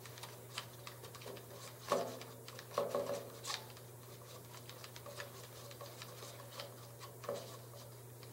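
Dry yeast and warm water being stirred in a paper cup, the stirrer ticking and scraping against the cup's sides in quick, irregular clicks, a few louder knocks about two, three and seven seconds in.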